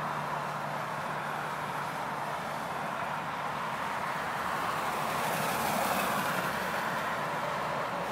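Steady noise of road traffic, tyres on the highway making an even hiss that swells slightly about two thirds of the way through.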